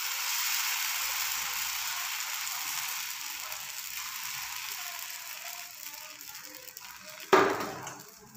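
Dosa batter sizzling on a hot cast-iron tawa while a ladle scrapes it round into an uttapam, the hiss slowly fading. A single sharp knock comes near the end.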